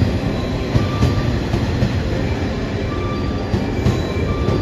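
Former JNR 115 series electric multiple unit (JR West) running slowly into a station platform: a steady rumble of wheels and running gear on the rails, with now and then a faint, short squeal.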